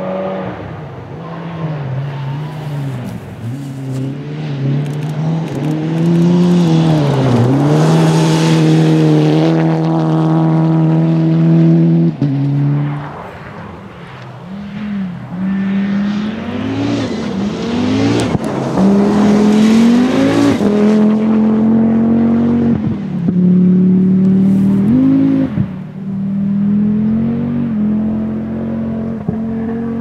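Historic rally car on a gravel stage, its engine revving hard as it approaches, with an upshift about twelve seconds in. Then come repeated lifts and bursts of revs as it slides through the bend, and it accelerates away.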